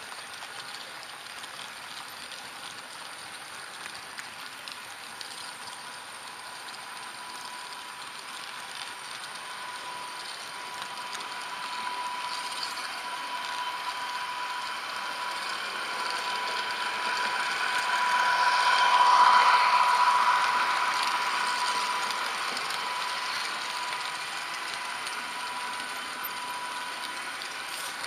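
HO-scale model train's small electric motor and gears running with a steady whine, with the wheels rattling on the track. The sound swells to a louder rattle for a few seconds a little past the middle, as an oncoming model train passes on the adjacent track, then fades again.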